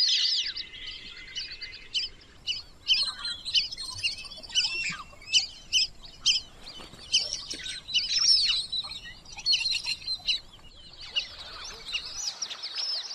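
A flock of lesser whistling ducks calling: many short, high, thin whistles, overlapping and repeated, thicker near the end.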